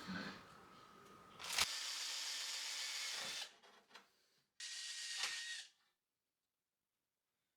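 A small power tool runs in two short bursts, one of about two seconds starting with a sharp click, then a second of about one second.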